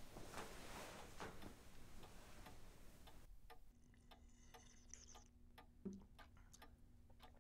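A clock ticking steadily and faintly in a quiet room.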